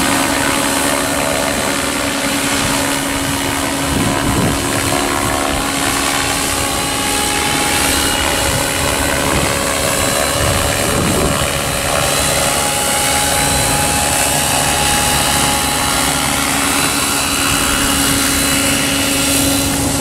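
Electric radio-controlled model helicopter flying, its main rotor and electric motor running at constant speed with a steady pitched whine over a whooshing rotor wash.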